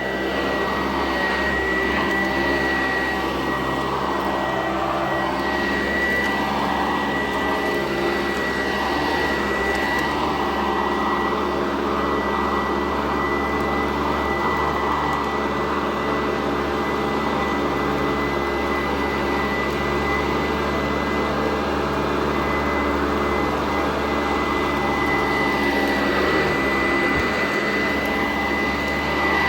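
Sanitaire SC899 upright vacuum cleaner running steadily, with a constant high whine over its motor noise.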